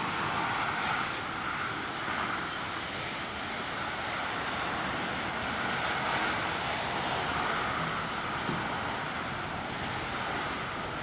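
Boeing 787-9 jet airliner's engines: a steady jet rush with a band of hum around the middle, holding level without clear rises or falls.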